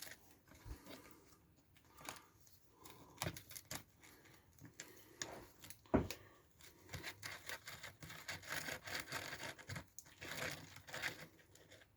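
Faint small metallic clicks and taps of a socket on an extension bar being fitted and turned to undo a screw on an RC truck's steering plate, with one sharper click about halfway and a denser run of small ticks and scrapes after it.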